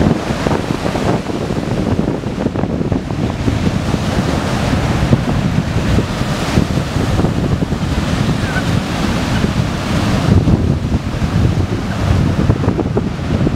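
Ocean surf breaking and washing up the sand, with wind buffeting the microphone in gusts.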